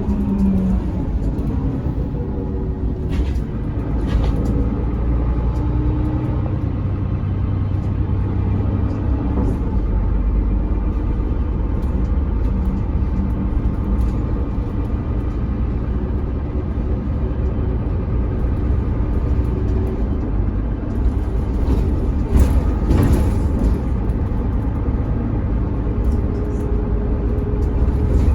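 Mercedes-Benz Citaro O530 bus on the move, heard on board: a steady low rumble of engine and road, with faint whining tones from its ZF automatic gearbox rising and falling as it changes speed, and a few short rattles.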